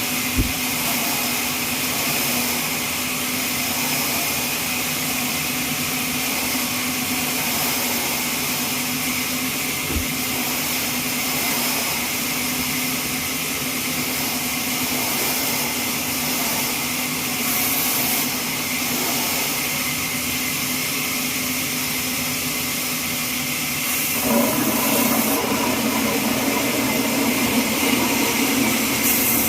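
Horizontal trolley bandsaw sawmill running with a steady hiss and hum, with a couple of light knocks. About twenty-four seconds in the sound steps up, louder and fuller.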